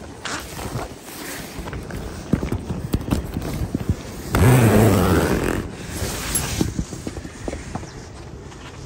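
Tent door zipper pulled open in one loud pull about four seconds in, with a rising buzz as the slider runs along the teeth. Light rustling and clicks of handling the tent fabric come before and after it.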